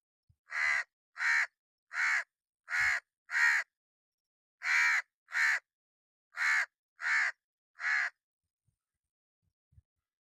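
A crow cawing: ten harsh caws in a steady series, roughly one every two-thirds of a second, with a short pause about halfway through.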